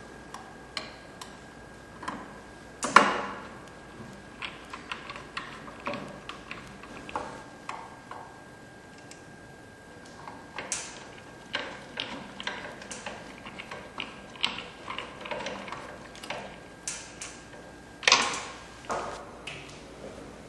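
Irregular clicks, taps and knocks of a screwdriver driving screws into the cutter bracket and hands fitting the cutter module on a thermal-transfer label printer, with two louder knocks about 3 seconds in and near the end.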